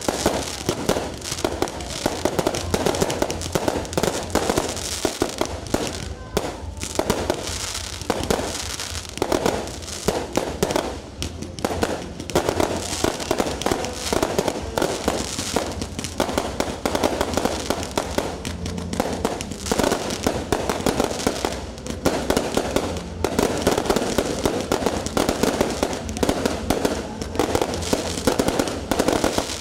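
Fireworks fired from the ground in a rapid barrage: a dense, unbroken run of pops, bangs and crackling bursts.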